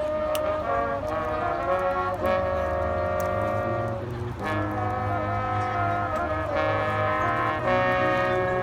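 Marching band playing held brass chords over low brass, the chords changing every couple of seconds, with a short break about four seconds in.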